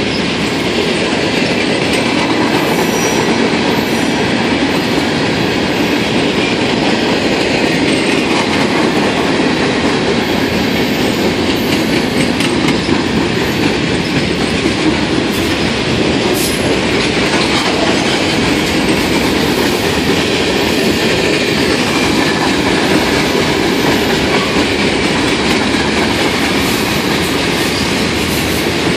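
CSX freight train's cars rolling steadily past: a continuous rumble of steel wheels on rail, with the clickety-clack of wheels over rail joints.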